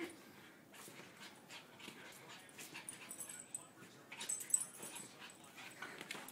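Small dogs play-fighting, with dog whimpers and yips and quick scuffling taps as they wrestle.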